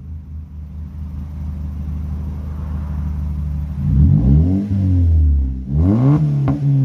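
Engine with an aftermarket Coby exhaust idling steadily, then revved twice, about four seconds in and again near the end, the pitch climbing and falling back each time.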